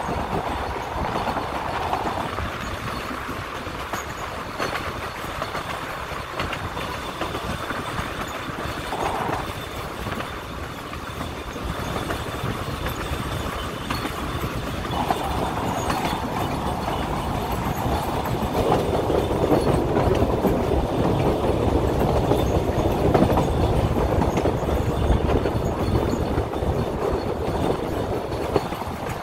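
Puffing Billy narrow-gauge steam train on the move, heard from one of its carriages: steady wheel-and-track noise and carriage rumble. It gets louder for about ten seconds in the second half.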